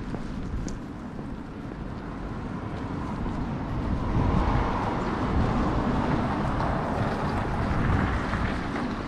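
Wind rumbling on the microphone, with a car passing on the street: its tyre and road noise swells from a few seconds in and fades again near the end.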